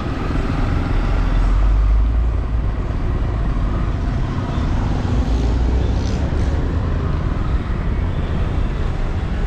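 Steady low rumble of a car driving through street traffic, heard from inside the car, with other vehicles passing close by.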